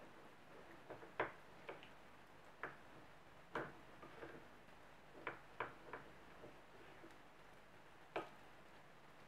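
Wooden spoon stirring a thick yogurt and mayonnaise sauce in a ceramic bowl, the spoon knocking against the bowl in irregular light clicks. There are about ten clicks, bunched in the first six seconds, with one last click near the end.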